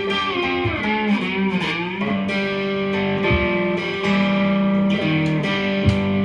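Amplified cigar box guitar playing a slow blues, its notes sliding up and down in pitch, with a few low thumps now and then.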